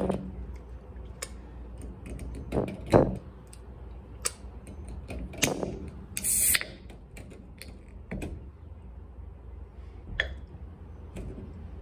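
Boiled blue crab being cracked and picked apart by hand and eaten: scattered sharp cracks and snaps of shell, the loudest about three seconds in, and a brief hissy burst just past six seconds, over a steady low hum.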